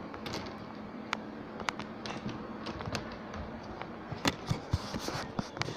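Scattered light clicks and taps over a faint steady hum, with a few sharper knocks between about four and five and a half seconds in.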